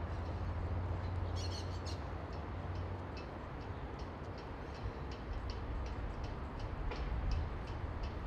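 Outdoor ambience at a polo ground: a steady low rumble with scattered light ticks and a short high chirping burst about a second and a half in.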